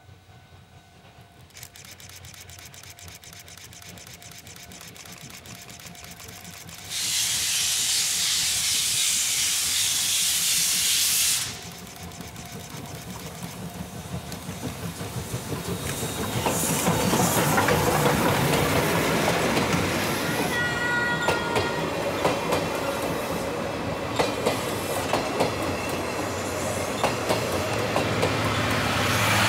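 Steam locomotive C58 363 approaching with quick, regular exhaust beats, then a loud hiss of steam lasting about four seconds. As the locomotive and its coaches pass close by, the rumble and clickety-clack of their wheels on the rails grows loud, with a few brief high squealing tones midway.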